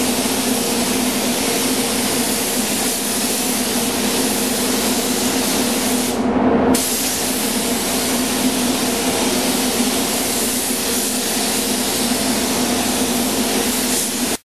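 Devilbiss GTi gravity-feed paint spray gun hissing steadily as it sprays solvent metallic basecoat onto a car panel. The spray stops briefly a little past six seconds in, as the trigger is let off, then resumes. A steady low hum runs underneath.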